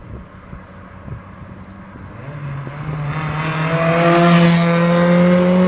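Honda Civic with no muffler driving past, its four-cylinder exhaust note growing louder and rising slightly in pitch as it accelerates. It is loudest as it goes by, near the end.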